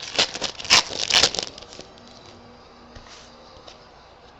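Rustling and crinkling of a foil trading-card pack wrapper and cards being handled, in quick bursts for about a second and a half, then it goes quiet.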